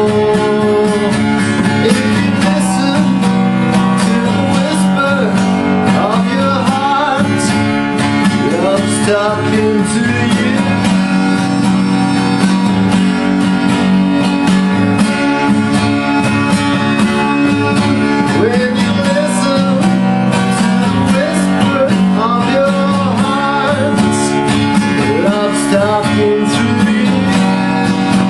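Acoustic guitar strummed steadily in an instrumental stretch of a slow song, with a melody line that slides up and down over the chords.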